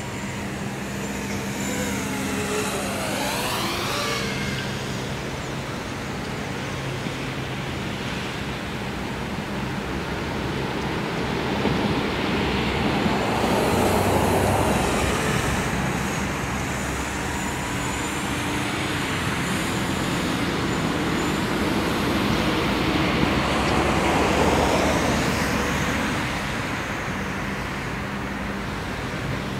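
FPV racing quadcopter flying past repeatedly, its brushless motors and propellers whining with the pitch sweeping up and down as the throttle changes. It gets louder as it comes close about fourteen and twenty-four seconds in. A steady low hum runs underneath.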